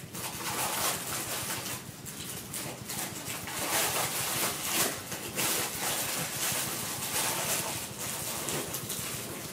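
Packaging being handled during an unboxing: an irregular run of rustling and crinkling, with no steady rhythm.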